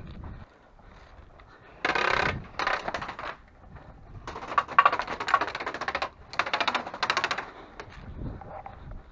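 Airsoft gun firing on full auto in four bursts of rapid clicks. Two short bursts come about two and three seconds in, then a longer burst, then another short one.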